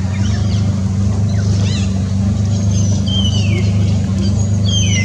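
A steady low motor hum, with a few short high chirping calls that slide down in pitch, about three seconds in and again near the end.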